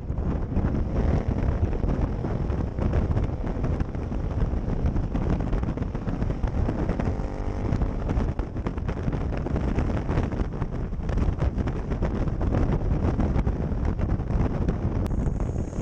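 Heavy wind buffeting the microphone of a camera on a motorcycle at road speed, with the bike's engine running underneath.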